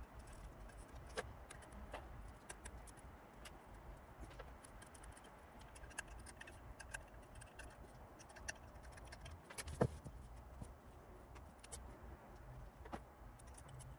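Hobby-knife blade scraping blistered paint off the back of a glass panel: faint scratching with many small, irregular clicks and one slightly louder click about ten seconds in.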